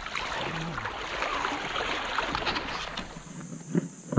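Steady rush of flowing river water with wind buffeting the microphone, dropping quieter about three seconds in.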